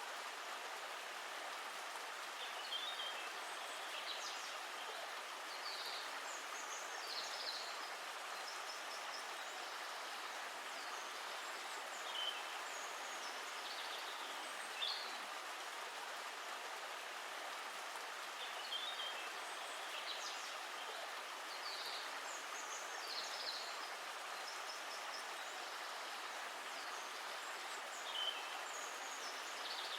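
Steady rush of a flowing stream, with short bird chirps every few seconds.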